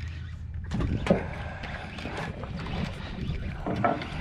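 Spinning reel being cranked to bring a hooked fish up, over wind on the microphone and a steady low hum, with a few brief knocks about a second in and near the end.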